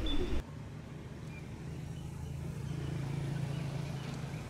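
A low, steady rumble that swells toward the middle and fades out near the end.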